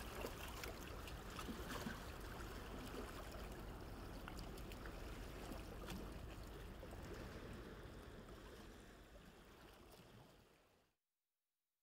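Calm sea water lapping and trickling softly, with small splashes here and there, fading away to silence near the end.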